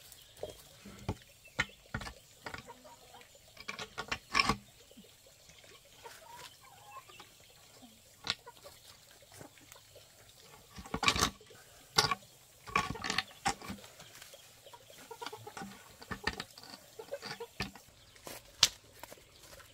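Farmyard animal calls with scattered short knocks and clatters, the loudest clusters about four, eleven and thirteen seconds in.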